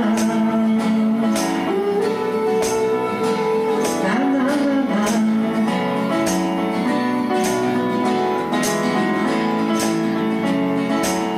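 Live acoustic guitar strummed to a steady beat together with an electric keyboard, playing a pop song.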